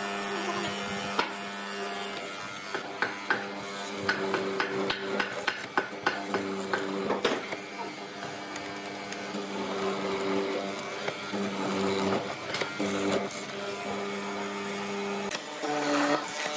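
Benchtop hollow-chisel mortiser running with a steady hum, its chisel plunging repeatedly into a wooden beam with crunching cuts and sharp knocks, thickest in the first half.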